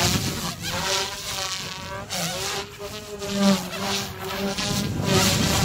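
Goosky S2 electric RC helicopter flying aerobatics: a steady buzz from its motor and spinning rotor blades that shifts up and down in pitch and swells and fades as the helicopter swoops and changes direction.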